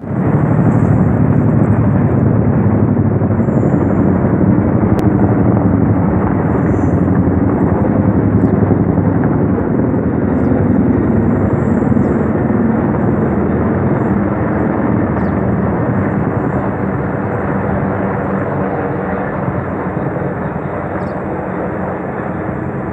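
Several helicopters flying overhead in formation: loud, steady rotor and engine noise that slowly grows quieter over the last several seconds as they move away.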